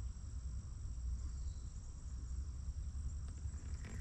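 Insects calling in a steady, unbroken chorus, heard as two high-pitched held tones, over a low rumble.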